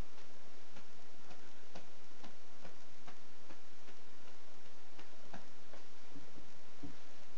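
A run of light, irregular clicks, about two a second, over a steady hiss, with a couple of duller knocks near the end.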